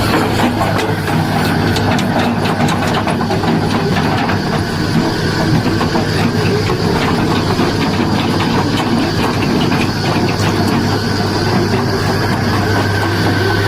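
Tata Hitachi excavator's diesel engine running steadily, with many short clicks and clanks over its hum.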